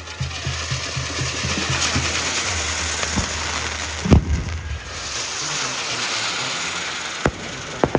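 Fireworks castle tower burning: spark fountains hiss and crackle steadily. There is one sharp bang about four seconds in and three more near the end.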